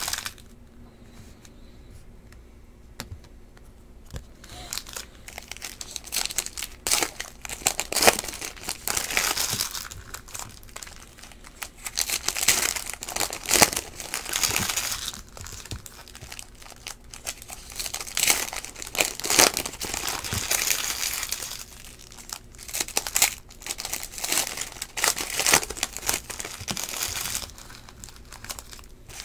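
Foil trading-card packs being torn open and crinkled by hand, in irregular bursts of rustling after a quieter first few seconds.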